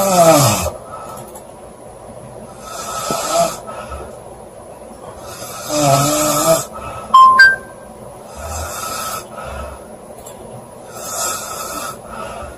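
A woman snoring loudly, with a noisy snore on each breath about every three seconds; some snores carry a pitched drone that falls or wavers. Just past halfway come two short, loud high tones.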